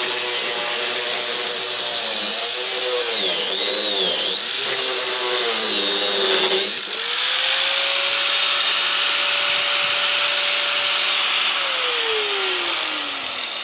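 Harbor Freight Drill Master 4.5-inch angle grinder cutting metal, its motor pitch wavering and dipping as it bogs down under load. About seven seconds in, the wheel comes free and the motor runs at a steady whine. Near the end it is switched off and winds down with a falling whine.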